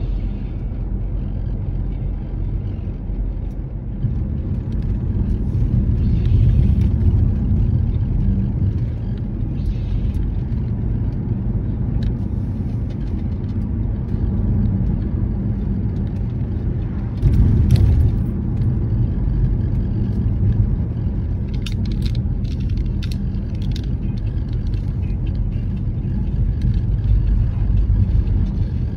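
Steady low rumble of a car on the move, with a short louder surge about seventeen seconds in and a few faint clicks a little later.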